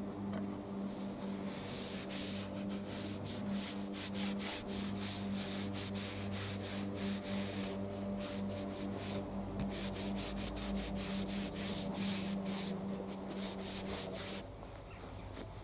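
A wooden canoe paddle being sanded, in quick repeated rasping strokes over a steady low hum; both stop about a second before the end.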